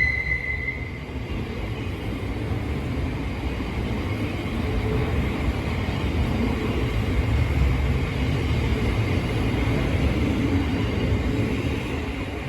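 Electric passenger train running through the station with a steady low rumble; a high-pitched squeal fades out in the first second.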